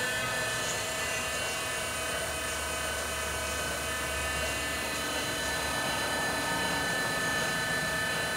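Electric drive of a LeBlond Regal Servo Shift engine lathe running steadily with the spindle at rest: an even machine whine made of several tones over a low hum.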